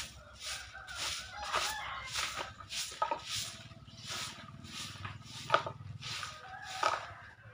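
Stick broom sweeping bare ground in short, brisk strokes, about two a second, with chickens clucking now and then.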